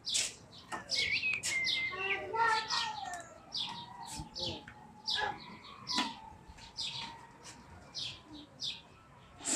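Many small birds chirping in a steady run of short, high-pitched calls, several a second.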